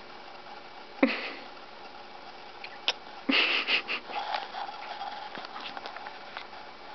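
Sniffing right at the microphone, loudest in a quick run of sniffs a little past the middle, with fabric rustle and a few small clicks from handling.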